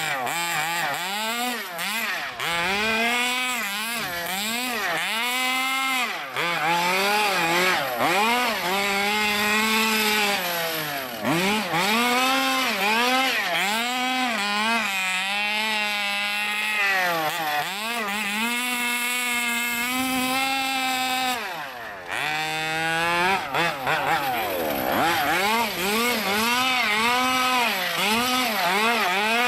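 Stroked 30cc Zenoah two-stroke engine of an MCD X4 Rally 1/5-scale RC car, revving up and down over and over with the throttle. It holds high revs for a few seconds at a time and drops back briefly, most deeply about 22 seconds in.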